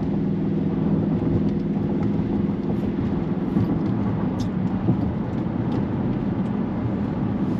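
Dodge Charger Widebody's engine running steadily at a gentle cruise, its low hum mixed with a constant hiss of tyres on the wet road.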